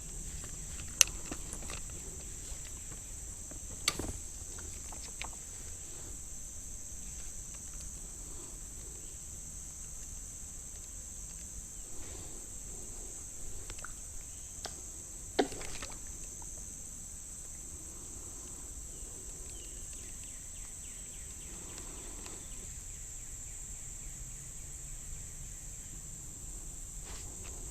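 Steady high-pitched chorus of insects, with a few sharp clicks and knocks, the loudest about a second in and about fifteen seconds in.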